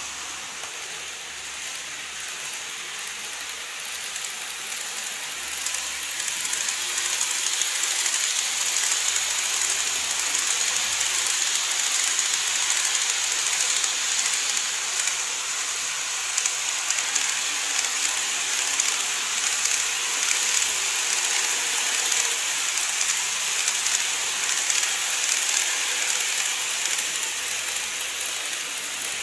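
N gauge model trains (an E233 series and an E351 series) running on an elevated track: a steady high-pitched hiss of small motors and wheels on rail with fine rapid ticking, growing louder a few seconds in as the trains approach and pass.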